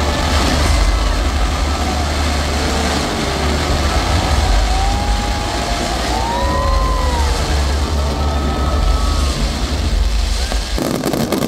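Fireworks display going off continuously: a dense rumble of bursting shells, with short whistling tones that rise and fall above it. The sound changes abruptly near the end.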